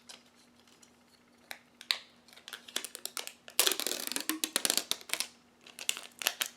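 Adhesive tape being pulled off its roll and handled while wires are taped to a 9-volt battery: scattered small clicks and crackles, with a dense rasp lasting about a second and a half near the middle as a strip is pulled free.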